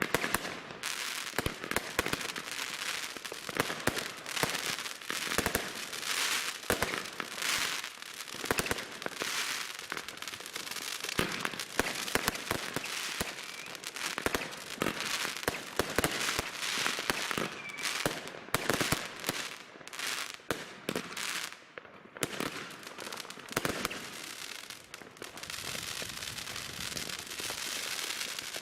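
New Year's Eve fireworks and firecrackers going off: a dense, continuous run of bangs and cracks with crackling between them. Near the end the bangs thin out into a steadier crackle.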